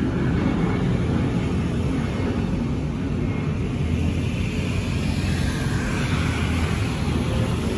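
Aircraft passing overhead above the cloud, a steady low engine rumble.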